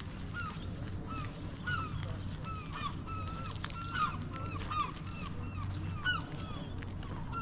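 A flock of waterfowl calling, many short repeated calls overlapping one another, with a few louder calls about four to six seconds in, over a steady low rumble.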